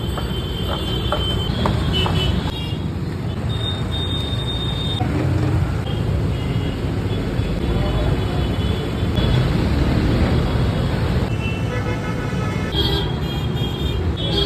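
Busy road traffic running steadily, with vehicle horns tooting several times.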